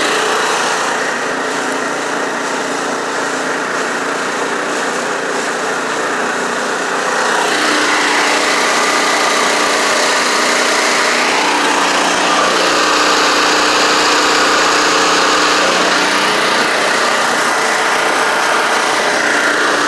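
Small gas engine of a mud motor running under way, driving the propeller of a jon boat, with water rushing and splashing along the hull. About seven and a half seconds in, the engine picks up and gets louder, then holds steady.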